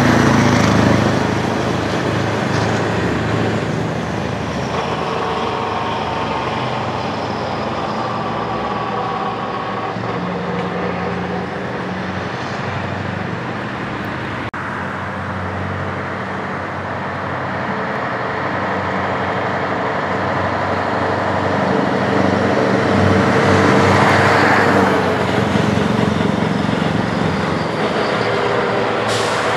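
Diesel engine of a Scania tractor unit running as the truck drives along a street. It grows louder as the truck comes up and passes close by, about three quarters of the way through, then fades as it pulls away. Light car traffic runs underneath.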